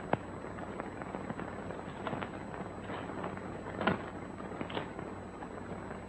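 Steady hiss and hum of an old film soundtrack with scattered sharp cracks and pops, the loudest right at the start and about four seconds in.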